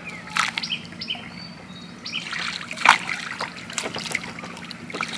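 Water dripping and splashing as a fishing longline is pulled hand over hand out of the canal into a wooden boat. A string of short splashes and drips, the sharpest about three seconds in.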